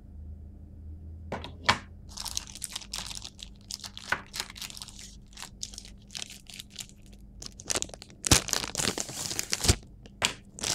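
Clear plastic packaging bag crinkling in irregular bursts as it is handled, loudest near the end, with a couple of sharp knocks.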